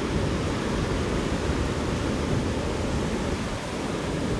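Bomburu Ella waterfall rushing: a steady, unbroken roar of falling water.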